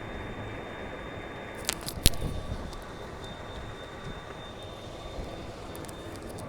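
Steady road and traffic noise heard while riding along a street, with two sharp knocks about two seconds in, the second one the loudest.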